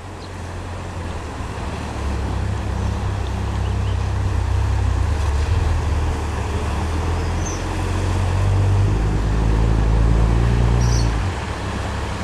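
Engine running steadily, a loud low drone under a haze of rushing noise; it eases off about eleven seconds in.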